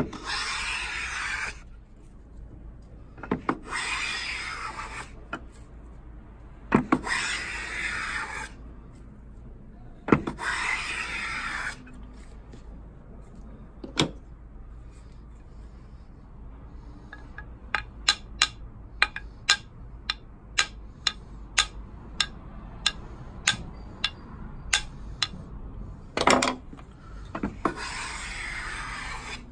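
Wooden hand plane taking shavings off a strip of wood in four strokes of about a second and a half each. Then comes a run of about twenty light hammer taps on the plane, roughly three a second, which set the blade. A last stroke follows near the end.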